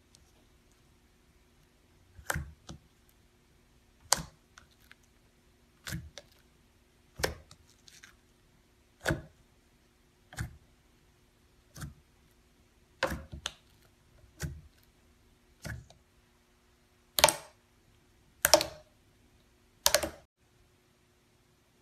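Fingers poking and pressing into thick slime, each push giving a short, sharp pop about every second and a half. The last three pops, near the end, are louder and longer.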